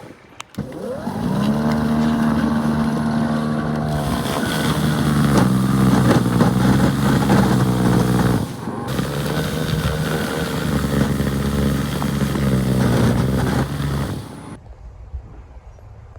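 An engine comes up to speed about a second in and runs steadily at one pitch, breaks off briefly about halfway through, then carries on until it stops near the end.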